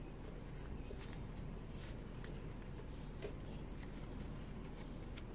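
Faint rustling and scratching of a small stitched fabric strip being turned inside out by hand, with scattered soft clicks over a low steady hum.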